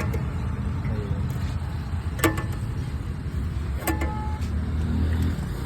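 Maruti Wagon R engine running with a steady low rumble, broken by a couple of sharp clicks.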